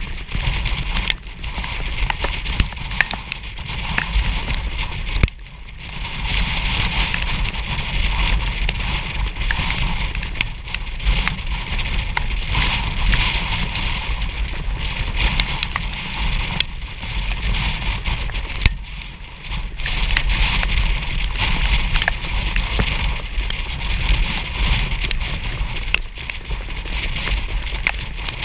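Wind rushing over the microphone of a camera riding on a harness-racing sulky at speed, mixed with the horse's hoofbeats and the sulky wheels crackling over the dirt track. The noise drops briefly about five seconds in and again a little before twenty seconds.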